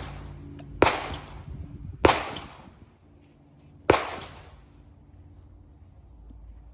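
Three handgun shots fired at a range, each echoing briefly: the first about a second in, the second a little over a second later, and the third nearly two seconds after that.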